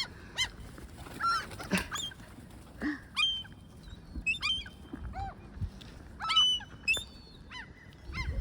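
A gull giving repeated short, harsh calls in quick runs of two to four, the loudest about six and a half seconds in: the alarm calls of a parent gull chasing people away from its chicks on the ground.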